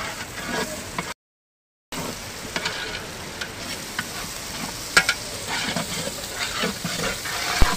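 Ginger-garlic paste sizzling in hot oil with browned onions in a large aluminium pot, stirred with a ladle that knocks and scrapes against the pot. The sound cuts out briefly about a second in.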